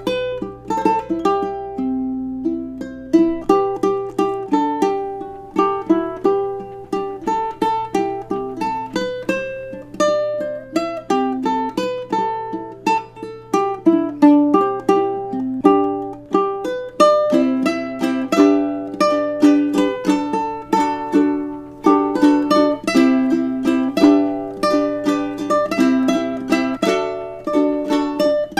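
Solo ukulele playing a tune: a steady stream of plucked notes and chords, each ringing briefly and dying away.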